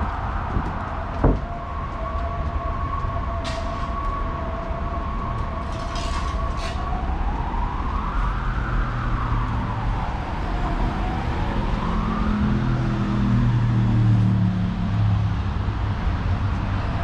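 A distant emergency-vehicle siren over steady street traffic: first a held tone, then two slow rising-and-falling wails. A sharp knock sounds about a second in, and a low engine rumble comes in during the second half.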